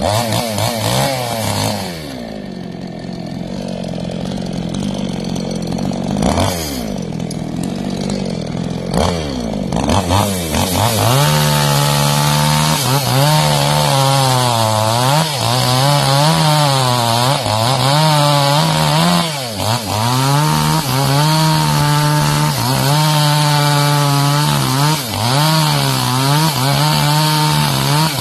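Chainsaw engine revving up and down at part throttle, then from about ten seconds in held high and cutting through mangosteen wood, the engine pitch dipping and recovering again and again as the chain bites.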